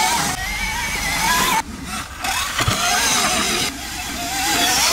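BHR E-Race electric dirt bike's motor and gearbox whining, the pitch rising and falling with the throttle, over the hiss of the knobby rear tyre throwing up dirt. The sound drops out briefly about a second and a half in, then comes back.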